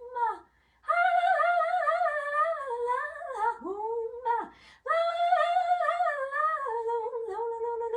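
A high woman's voice singing a wordless, improvised melody in two long phrases, its notes gliding up and down with a short break between them, in a small room.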